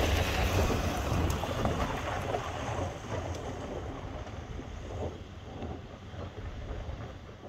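Ford Territory SUV driving away on a dirt track, its engine and tyres on the loose surface fading steadily as it goes, with wind rumbling on the microphone.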